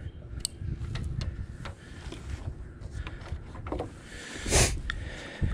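Handling noise as solar-panel cable connectors are worked by hand: scattered small clicks and knocks over a low rumble, with one louder rustle about four and a half seconds in.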